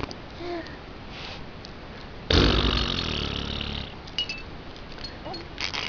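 A mouth-made fart sound: lips blown into a wet, buzzing raspberry once, starting a little over two seconds in and lasting about a second and a half.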